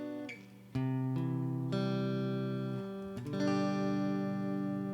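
Instrumental intro of a song: held chords that change a little under a second in, again near two seconds and once more past three seconds.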